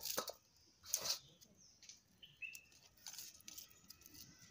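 Dry onion and garlic skins crackling and rustling as they are peeled by hand and with a small knife, in a few short bursts near the start and about a second in. A few faint bird chirps can be heard in the background.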